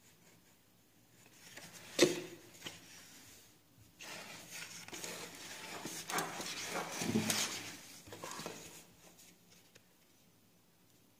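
Handling noise: one sharp knock about two seconds in, then several seconds of rustling and scraping with small knocks as the phone camera and the painting paper are moved about.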